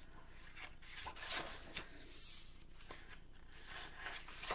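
Pages of a large hardcover picture book being handled and turned: paper rustling and sliding, with a couple of louder swishes about one and a half and two seconds in.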